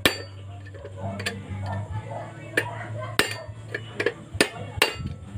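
Hand tools clinking and tapping on the metal of a mini chainsaw's clutch side as the engine is locked for work on the clutch: a series of irregular sharp metallic clicks, with a low steady hum underneath.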